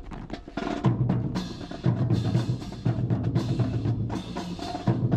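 Music with a heavy drum beat, a deep pulse about once a second over sharper drum strokes.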